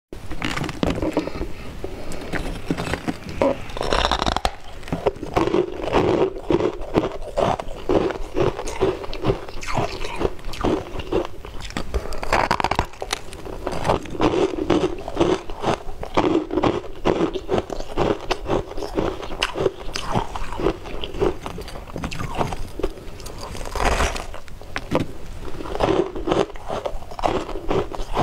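Crunching and chewing of frost-covered ice balls: a steady run of crisp crackles as the ice breaks between the teeth, with a few louder bites spread through.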